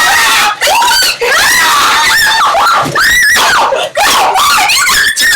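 Loud, high-pitched screaming: a run of repeated shrieks with short breaks between them.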